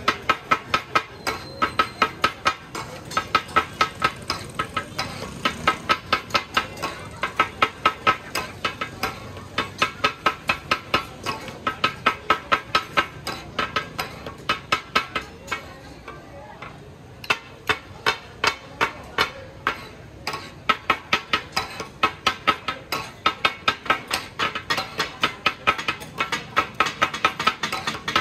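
Katakat chopping: metal blades striking a large flat iron griddle over and over, about three or four ringing clangs a second, with a short break just past the middle.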